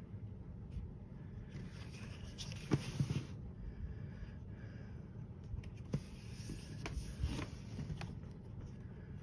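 Paper pages of a coloring book being turned, rustling in two spells with a few light taps.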